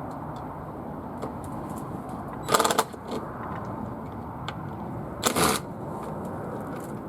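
Cordless impact driver fired in two short bursts, about half a second each, trying to back out stubborn flat-head screws from a polytunnel door hinge. Steady wind noise on the microphone underneath.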